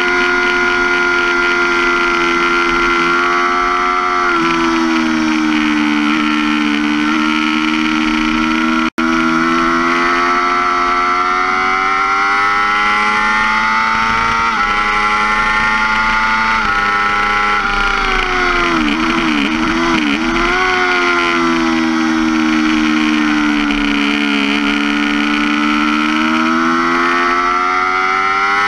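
2005 Yamaha R6's inline-four engine running hard at high revs on a track, pulling up through the gears with small steps in pitch at the gear changes. The revs fall twice, with a warbling about twenty seconds in as it shuts off and changes down, then climb again. A momentary drop-out in the audio comes about nine seconds in.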